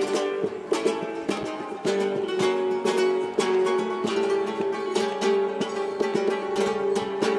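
Plucked-string music, a guitar picking quick notes over held tones.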